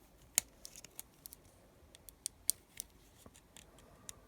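Flat-blade screwdriver prying around the seam of a plastic car key fob shell: an irregular string of small, sharp plastic clicks and ticks, the loudest about half a second in.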